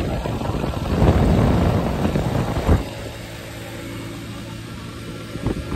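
Motorcycle engine and wind rush on the road, loudest about a second in. Then, about three seconds in, a sudden change to a quieter, steady engine drone of a motorcycle cruising at constant speed.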